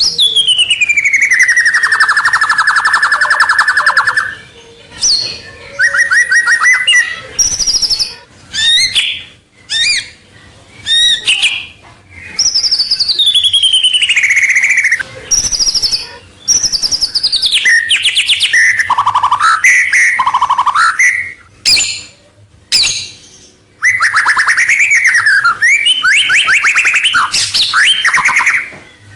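White-rumped shama singing loudly and vigorously, in the full song used as a lure to draw rival birds in. It gives a string of varied phrases with short pauses between them: a long whistle falling into a buzzy held trill at the start, then quick rattles, falling and rising whistles, and a long rapid trill series near the end.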